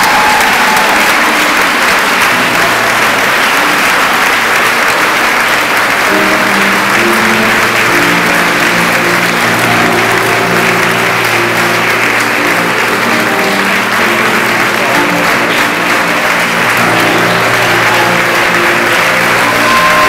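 A large audience applauding steadily, with instrumental music coming in under the clapping a few seconds in and playing on.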